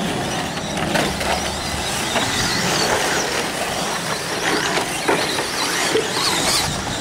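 2WD modified-class electric RC short-course trucks racing on dirt: the motors whine, rising and falling in pitch as the trucks speed up and ease off over the jumps, with a few sharp knocks from landings.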